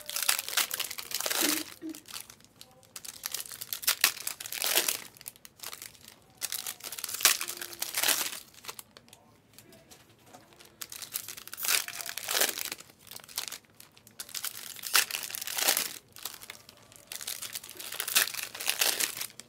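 Plastic wrappers of trading-card packs crinkling and tearing as the packs are ripped open, in bursts every few seconds.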